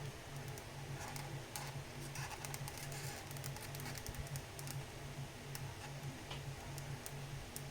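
Faint scattered clicks and light rustles of handling, over a low hum that pulses about twice a second.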